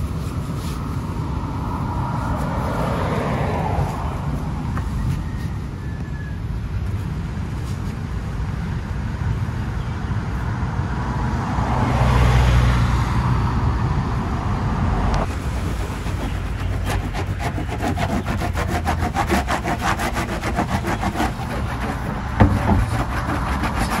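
Vehicles passing on a road, two swelling and fading, over a steady low rumble. From about fifteen seconds in there is a rapid scratchy rubbing.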